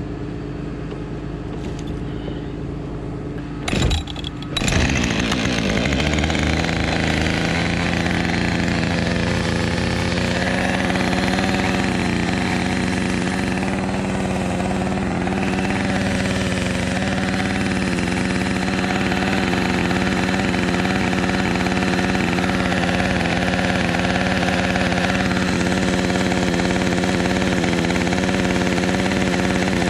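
An engine running, with a few sharp clicks about four seconds in, then speeding up and holding at a steady high speed.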